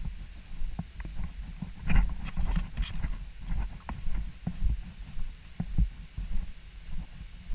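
Hiker's footsteps on a dirt and gravel trail, heard as a walking rhythm of low thuds under a second apart through a body-worn GoPro. A few sharper crunches of grit underfoot come about two to three seconds in.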